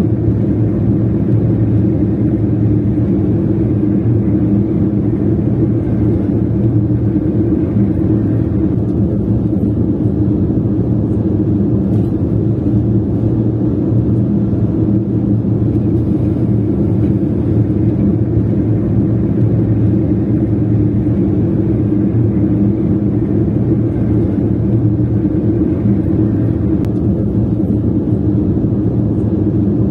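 A car being driven at a steady pace, with a constant low engine and road rumble.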